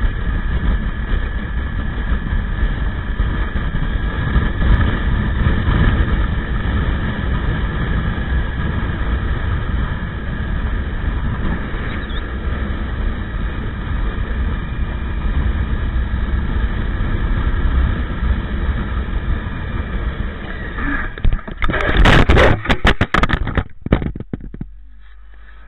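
Steady wind and road noise from a motorcycle riding on a wet road, heard through its onboard camera. About 21 seconds in comes a burst of loud scraping and clattering impacts as the motorcycle crashes under hard braking, and it settles to a lower steady rumble near the end.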